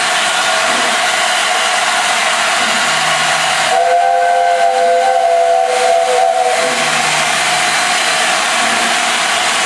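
LNER A4 steam locomotive 60009 'Union of South Africa' letting off steam in a loud, steady hiss. About four seconds in, its chime whistle sounds for about three seconds, several notes together.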